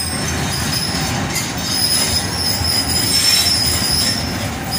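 Passenger train wheels squealing on the rails with a steady high squeal over a rolling rumble, as a diesel locomotive and its coaches pass close by on the adjacent track.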